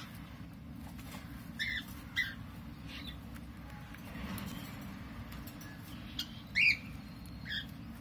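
Lovebirds in the nest giving four short, high chirps, two close together early and two near the end, the second-to-last the loudest, over a steady low hum.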